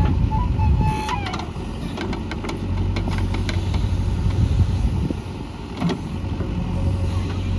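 JCB 3DX backhoe loader's diesel engine running steadily while it works, with a brief squeal near the start and several metallic knocks from the digging gear.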